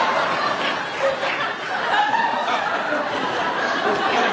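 Studio audience laughing, a sustained wave of laughter after a punchline.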